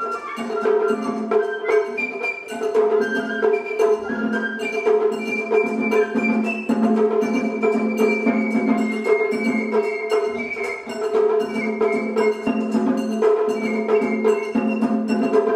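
Japanese festival hayashi music: a high bamboo-flute melody with sliding notes over quick, steady drum and gong strokes.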